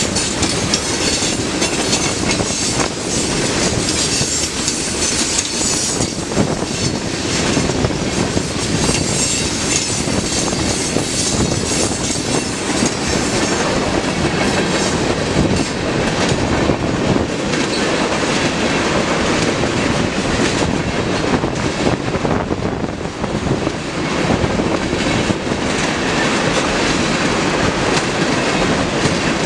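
Freight train cars rolling past at speed: a steady clatter of steel wheels on the rails, with many short clicks from the wheels crossing rail joints and a brighter hiss in the first half.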